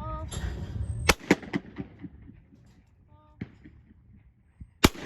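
Shotgun shots on a trap range: two loud sharp reports, one about a second in and one near the end, with fainter shots between.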